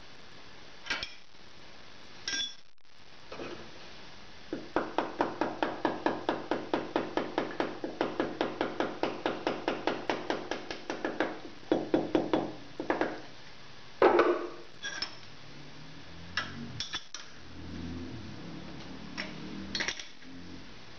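A mallet tapping a steel workpiece on a machine table to bring it square: a quick, even run of light taps, about five a second, then a few harder separate knocks. A few metal clinks of a wrench on the hold-down nuts come near the start and near the end.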